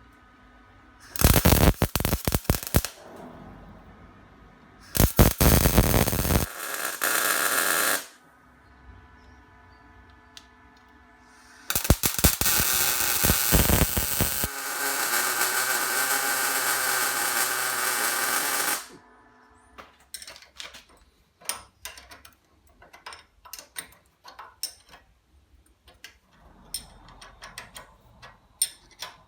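Power tools working metal in several bursts of a few seconds each. The first burst has a rapid rattle and the last runs steadily for about seven seconds. After that comes a run of light clicks and taps.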